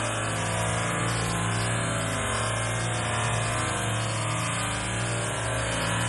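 Small waterfall: creek water pouring over a granite ledge and splashing into the pool below, a steady rush with a low rumble underneath.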